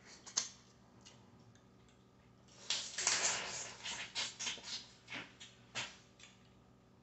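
Boiled crawfish being eaten close to the microphone. A couple of sharp shell clicks come first, then from about two and a half seconds in a few seconds of wet sucking and cracking noises broken by clicks.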